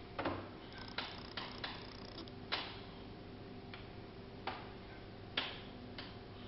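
Light metallic clicks and taps from handling an AR-15 upper at its muzzle device: about ten short, sharp ticks, irregularly spaced.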